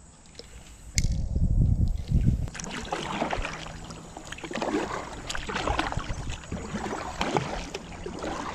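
Kayak being paddled upstream: water splashing and sloshing around the paddle and hull in an irregular stream. A low rumble comes about a second in.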